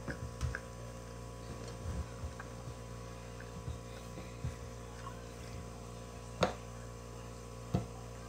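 Steady low electrical hum with a few faint tones in it, and a few soft taps and knocks of hands and food at the table. A sharper click comes about six and a half seconds in.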